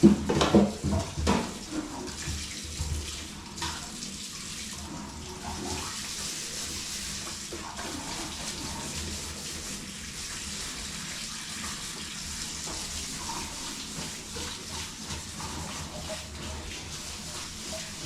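Steady hiss of water, after a few louder knocks of cookware in the first two seconds.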